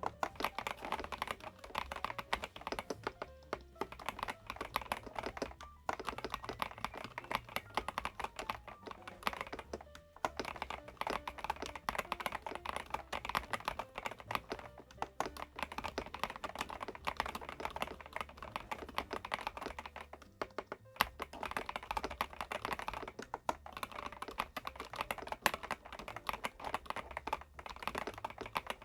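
Fast, continuous typing on an Epomaker DynaTab 75X gasket-mounted mechanical keyboard with Epomaker Flamingo switches, a dense run of key clicks with a few short pauses. Background music plays underneath.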